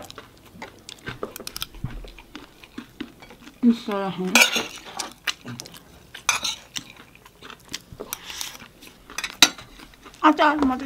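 Metal spoons clinking and scraping against plates and bowls during a meal, in many quick, irregular clicks. A brief voice sounds about four seconds in and again near the end.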